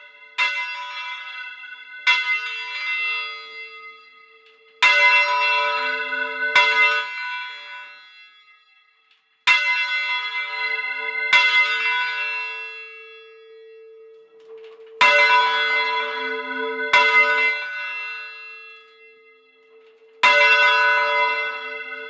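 Church bell swung full circle on its wheel, its clapper striking nine times. The strokes mostly come in pairs a little under two seconds apart with longer gaps between, each ringing on and dying away over a lingering hum.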